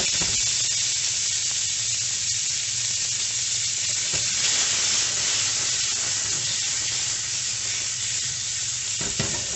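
Tuna chunks searing in a hot frying pan with a little oil: a steady sizzle over a low hum. Near the end the pan is shaken to turn the pieces, with a few clatters.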